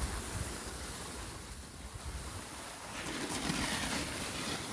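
Wind buffeting the microphone during a downhill ski run, with the hiss of skis sliding over snow; the noise grows a little louder about three seconds in.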